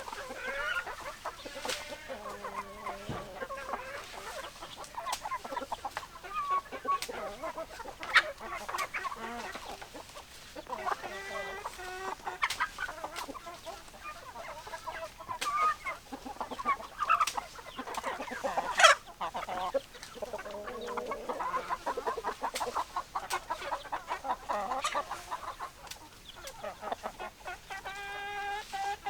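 Chickens clucking, several hens calling over one another in short pitched clucks, with a few sharp clicks, the loudest about two-thirds of the way through.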